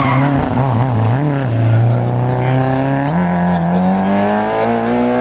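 Peugeot 205 rally car's four-cylinder engine revving hard, its pitch wavering up and down with the throttle, then jumping up about three seconds in and climbing steadily.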